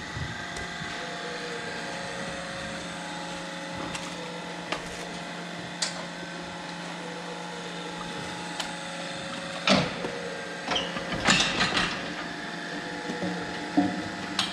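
A steady mechanical hum with a few sharp clicks, then a louder run of clattering knocks about ten seconds in.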